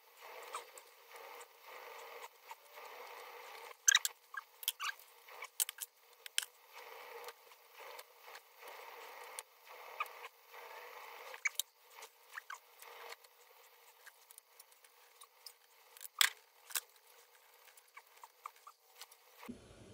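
Small metal parts of an old Elna sewing machine clicking, clinking and scraping under a screwdriver and fingers as it is taken apart, with the sharpest clinks in a cluster a few seconds in and a couple more later on.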